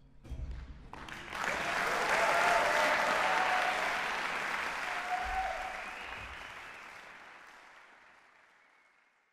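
Concert-hall audience applauding. The clapping breaks out suddenly, swells over the first two seconds with a few shouts of cheering, then fades out smoothly.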